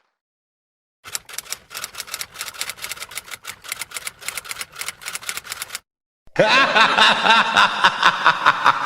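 Typewriter keys clacking rapidly for about five seconds, a stock typewriter sound effect. After a short gap near the end, high-pitched giggling starts.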